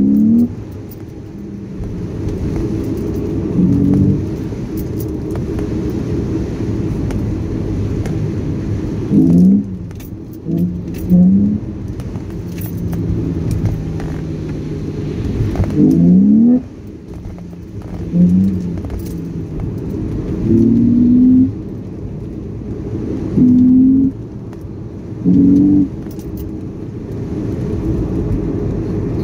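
BMW Z4 3.0i's M54B30 3.0-litre straight-six engine heard from inside the cabin, pulling along steadily over tyre and road noise. About ten times, for a second or so each, it gets louder and rises in pitch.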